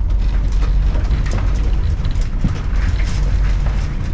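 Lada Niva's four-cylinder engine pulling a towed caravan over a rough off-road track: a steady low rumble with constant rattling and knocking from the body and hitch over the bumps.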